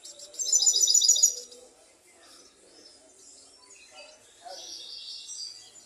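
European goldfinch singing: a loud, fast trill of evenly repeated notes lasting about a second, then softer twittering, with another run of song near the end.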